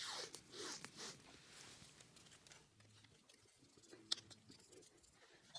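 Near silence: room tone with a few faint rustles in the first second and one faint click about four seconds in.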